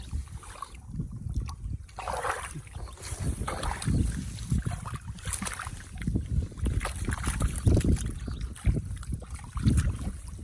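Water splashing and sloshing irregularly, with low rumbles of wind on the microphone.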